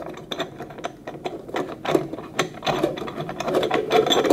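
Rapid, irregular metal clicking and scraping as the screw of a stainless steel sink basket strainer is turned in by hand.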